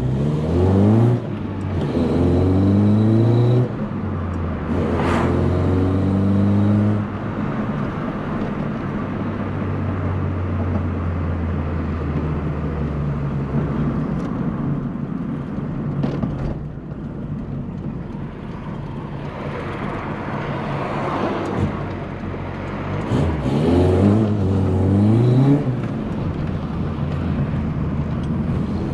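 VW Polo Coupe engine accelerating up through the gears, its pitch rising in steps with short breaks at each gear change, then running steadily at cruise before accelerating through the gears again near the end. The engine is freshly reassembled and being run in.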